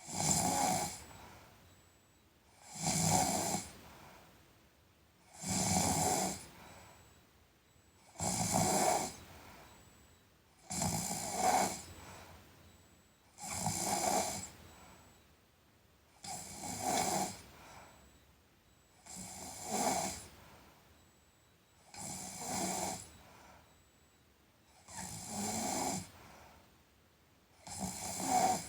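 A sleeping person snoring in a steady rhythm, one snore about every three seconds, each lasting about a second, with a softer breath fading away between snores.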